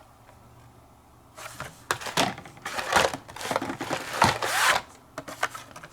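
Carded toy-car packages being handled and swapped: plastic blisters and cardboard backing cards rubbing, scraping and crinkling in an irregular run of noises that starts about a second and a half in.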